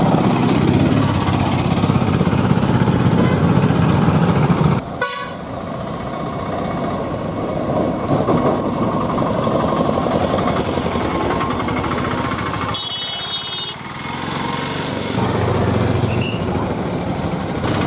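A motor vehicle running steadily, with a short horn toot about thirteen seconds in; the sound drops away suddenly about five seconds in, then carries on.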